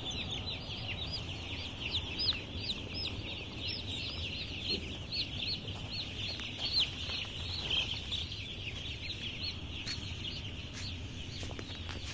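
A large flock of young chicks peeping: many short, high cheeps overlapping in a continuous chorus that thins out near the end, over a steady low hum.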